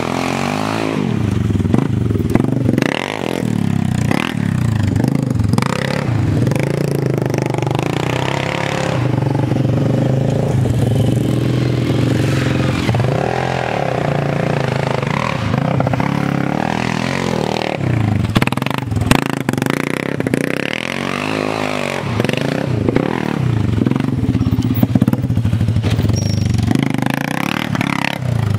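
Honda TRX300EX quad's single-cylinder four-stroke engine being ridden hard on a dirt trail, revving up and down over and over as the rider works the throttle and gears, with a few sharp clacks from the machine.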